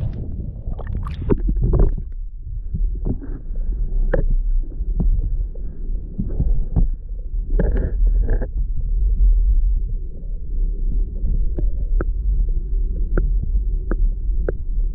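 Muffled underwater rumble and throbbing of shallow water, heard through a camera housing held below the surface, with scattered sharp clicks and knocks.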